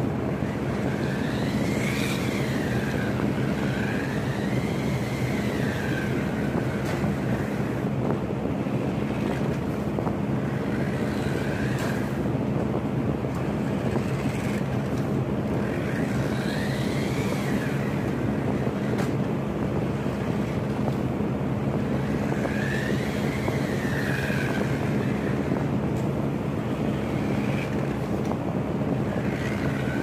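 Toy remote-control car's motor whining in repeated spells, its pitch rising and falling with each burst of throttle, over a steady hum and hiss.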